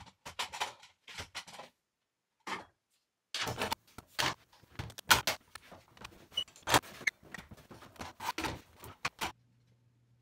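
Woodworking clamps being handled and tightened on a glue-up: a quick string of sharp clicks and knocks of clamp parts against wood and metal. There is a short lull about two seconds in, and the sounds stop about nine seconds in.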